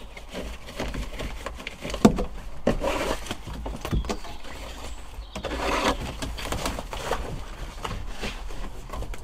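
Canvas canopy of a sailing dinghy being unfolded and raised over the foredeck: irregular rustling of the cloth, with sharp knocks about two and four seconds in.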